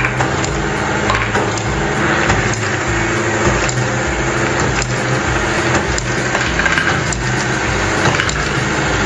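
Building-block marble run machine running: small plastic balls clicking and clattering through plastic track and lift parts in a steady stream of small clicks, over a steady low hum.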